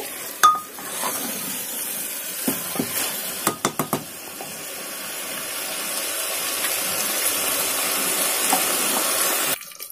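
Potato and onion masala sizzling in oil in a pressure cooker while it is roasted and stirred with a wooden spatula, with a few knocks and scrapes of the spatula against the pot in the first four seconds. The sizzle then runs steadily, slowly growing louder, and cuts off suddenly near the end.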